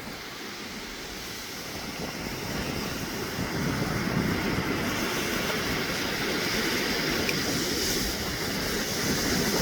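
Ocean surf washing ashore on a beach: a steady rushing noise that swells slowly over the last several seconds.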